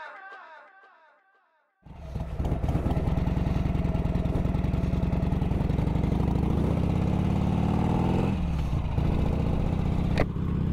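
A short musical jingle fades out, then after a moment of silence a motorcycle engine runs at road speed. Its pitch rises and then drops sharply about eight seconds in. There is a single sharp click near the end.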